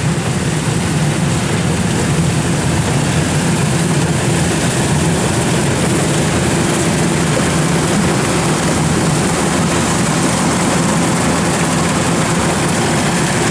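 Kubota DC-93 rice combine harvester running steadily under load as it cuts and threshes standing rice: an even diesel engine drone with a dense hiss of machinery over it.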